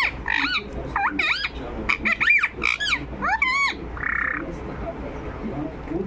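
Rose-ringed (Indian ringneck) parakeet chattering: a quick run of short chirps that swoop up and down in pitch, with a brief harsher rasp about four seconds in.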